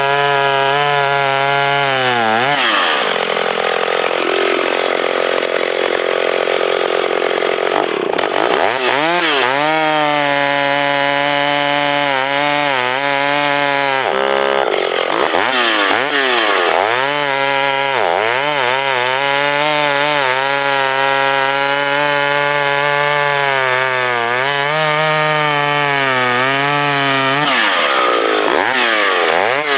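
Stihl 031 chainsaw running at high revs while cutting through a log about 14 inches across. Its engine note sags and climbs back again and again as the chain loads in the wood, and it pulls down hardest in the first several seconds.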